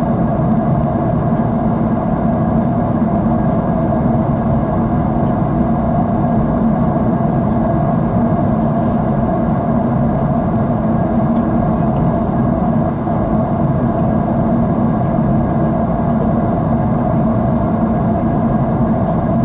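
Steady jet engine and airflow noise heard inside an airliner cabin: an even, unbroken low rumble with a hiss above it.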